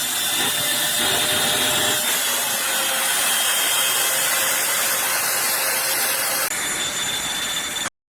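Eureka Blaze cordless stick vacuum running, a steady motor whine and airflow rush whose tone shifts slightly twice as the head is moved. The sound cuts off abruptly near the end.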